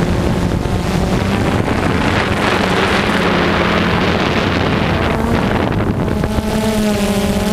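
Multirotor drone's motors and propellers buzzing steadily, with wind rushing over the microphone. The rush swells in the middle, and the propeller hum comes through clearer again near the end.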